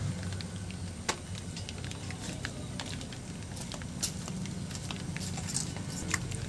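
Fish being cut on a hansua, a fixed upright blade: scattered light clicks and crunches as the steaks are pressed through the blade, over a steady low background rumble.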